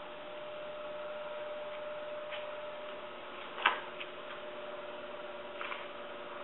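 Room tone: a steady electrical hum, with a few faint clicks and taps, the sharpest about three and a half seconds in.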